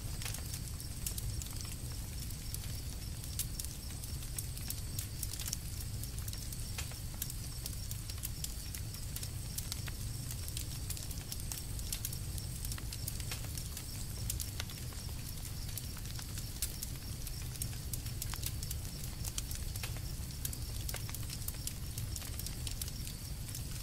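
Campfire burning, with frequent small crackles and pops over a steady low rumble.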